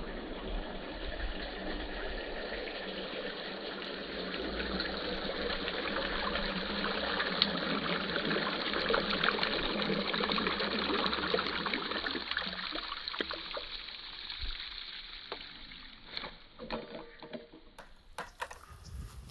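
Wash water draining out of the holes of a perforated inner bucket full of washed clothes: a steady splashing stream that thins to a trickle and dies away after about 15 seconds, followed by a few light knocks.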